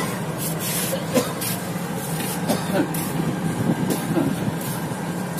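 Diesel locomotive running with a steady low drone, its engine at idle, with brief faint hisses and distant voices over it.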